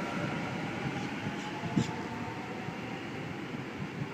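Sydney Trains Waratah (A set) electric train pulling away from the platform, a faint whine from its traction motors over a steady rumble, slowly fading.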